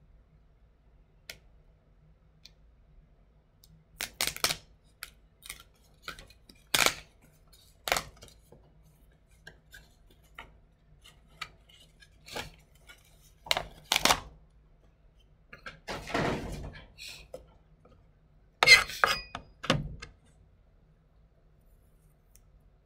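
Kitchen prep handling: a knife, chayote pieces and a paper plate knocked and set down on a plastic cutting board, with scattered knocks and clatters and a short scraping rustle about two-thirds of the way through.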